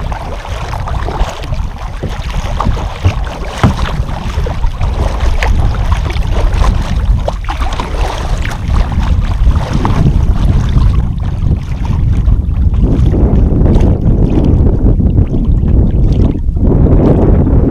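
Kayak paddle strokes splashing and dripping in lake water, under a heavy rumble of wind buffeting the microphone.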